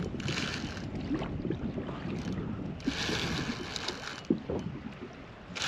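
Wind and water noise around a kayak, with three short hissing bursts, each about a second long.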